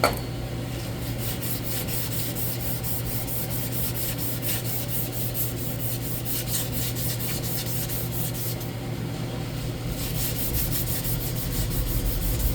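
240 grit emery cloth rubbed by hand over a steel hydraulic valve spool, lightly polishing out scoring where the seal rides: quick repeated rasping strokes with a brief lull about nine seconds in.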